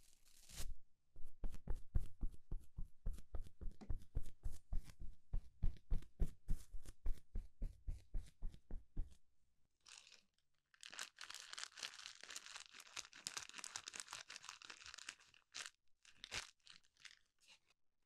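Stiff plastic toilet-brush bristles scratching and tapping right at the microphone: rapid dry scratches, several a second, for about nine seconds. After a short pause comes a stretch of crisp, crackly rustling, then a few short scratches near the end.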